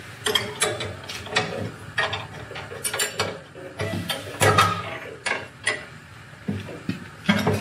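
Metal ammo can being pushed down into its metal mounting bracket: a run of irregular clunks, scrapes and clicks as it seats, the loudest knocks a little past halfway and just before the end.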